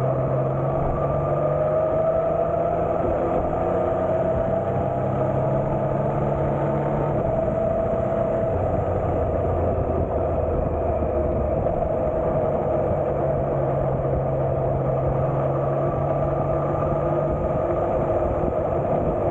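Three-cylinder motorcycle engine running steadily, its pitch climbing slowly over the first several seconds, then shifting in steps.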